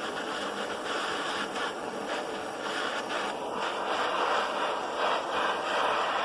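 Steady rushing hiss of a heat gun and a butane cartridge blowtorch heating a welded steel body panel, bringing it up to temperature for lead loading.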